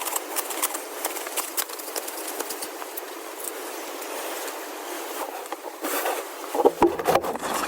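Knife working dry wood into thin kindling sticks: many short sharp clicks and small cracks over a scraping hiss.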